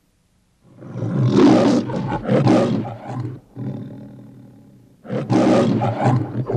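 The MGM logo's lion roar, played from a VHS tape: loud roars begin just under a second in and trail off into a fading rumble, then a second bout of roaring starts about five seconds in.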